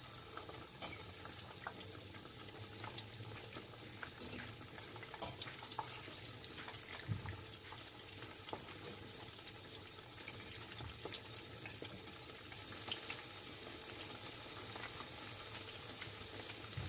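Battered squash blossoms frying in shallow oil: a faint, steady sizzle full of small crackles and pops, with a fork now and then tapping the pan.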